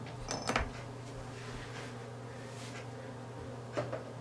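Small objects being handled off-camera: two light clicks, one with a brief high metallic ting, about half a second in, and a softer knock near the end. A steady low hum runs underneath.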